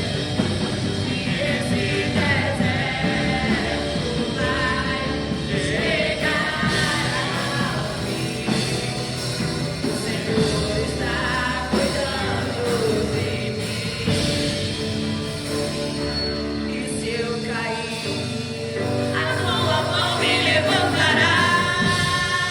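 Christian worship song: voices singing over a band's accompaniment, with long sung notes throughout.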